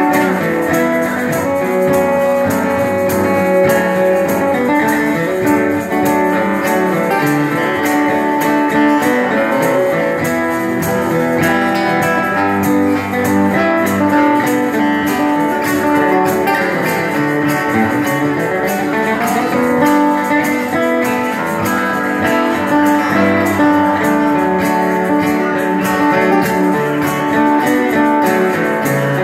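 Live acoustic music: an acoustic guitar strummed in a steady rhythm through a folk-country song.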